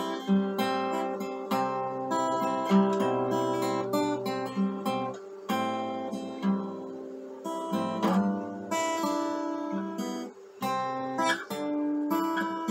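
Acoustic guitar played solo: chords strummed and picked, the notes ringing on, with a short break about ten and a half seconds in.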